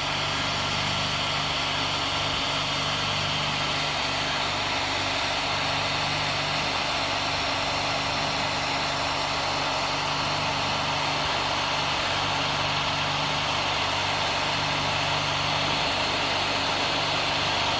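Heat gun blowing hot air onto heat-shrink tubing, its fan motor running steadily with an even hiss and a low hum.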